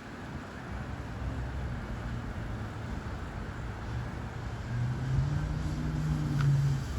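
Model RC plane's motor and propeller humming as it comes down to land, growing louder and rising slightly in pitch over the last few seconds, over steady outdoor background noise.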